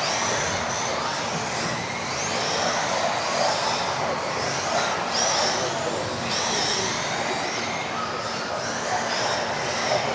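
Several 1:10 electric off-road RC buggies racing: high-pitched whines from their modified-class motors rise and fall again and again as the cars accelerate and brake, over a steady rushing noise.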